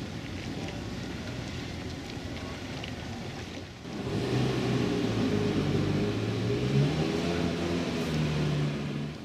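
Low background noise, then from about four seconds in a louder steady mechanical hum of several low tones, whose pitch steps up slightly a couple of times before it stops near the end.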